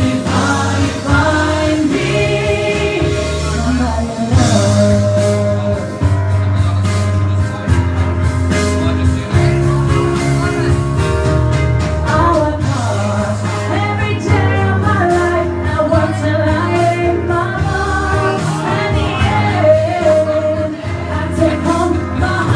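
A male singer performing live into a microphone, his voice carrying a sustained, gliding melody over musical accompaniment with a moving bass line.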